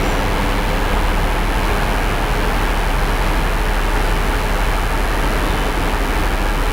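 Steady, loud hiss-like background noise with a constant low mains hum underneath, unchanging throughout.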